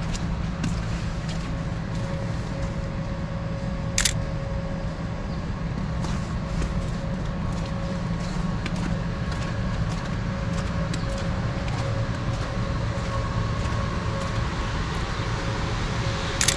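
Steady city street background of low traffic rumble with a faint steady hum, broken twice by the sharp click of a Sony A7C mirrorless camera's shutter, about four seconds in and again at the end.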